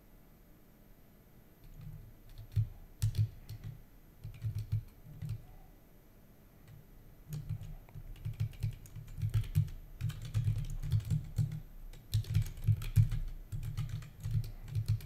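Typing on a computer keyboard: clusters of keystrokes begin about two seconds in, pause briefly in the middle, then come faster and denser through the second half.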